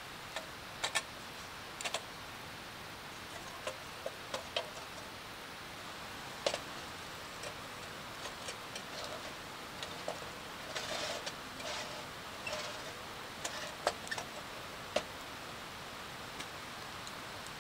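Wood fire crackling: irregular sharp pops and small clusters of crackles over a steady hiss.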